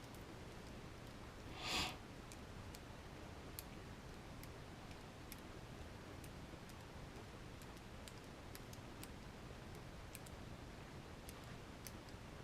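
Faint scattered clicks of small plastic and metal RC kit parts and tools being handled, with one brief louder rustle about two seconds in.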